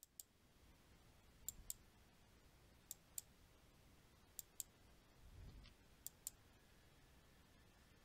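Faint hiss with pairs of short clicks, the two in each pair about a fifth of a second apart, coming four times roughly every second and a half. There is also a soft low thump about five and a half seconds in.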